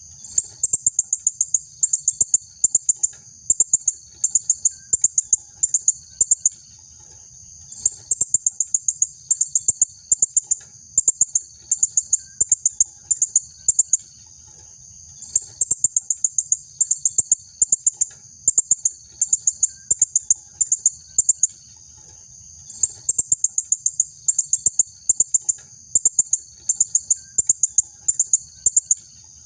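Female blue-crowned hanging parrot (serindit) calling persistently: rapid runs of thin, very high-pitched chirps, several a second, broken by short pauses and a few longer ones.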